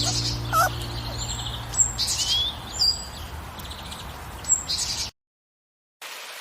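Small birds chirping: a series of short, high whistled notes and quick rising and falling calls. They stop abruptly about five seconds in.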